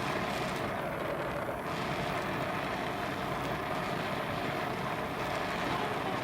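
Brazing torch flame burning steadily with an even hiss while it heats a steel part before the brazing rod is applied.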